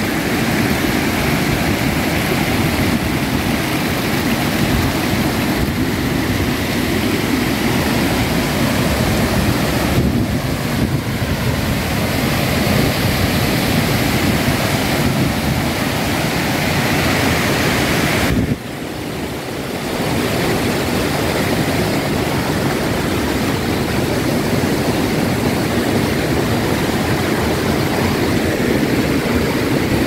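River rapids rushing over rock ledges and small falls: a loud, steady rush of water. It drops off suddenly about two-thirds through, then swells back within a couple of seconds.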